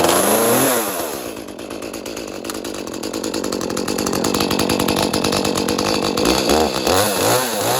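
Echo CS-310 two-stroke chainsaw starting from cold: it catches at high revs, drops quickly to a steady idle, then is revved up and down a few times near the end.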